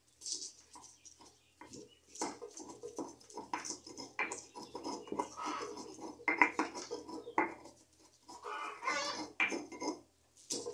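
Stone pestle pounding and grinding garlic cloves in a volcanic-stone molcajete: irregular knocks of stone on stone mixed with gritty scraping strokes.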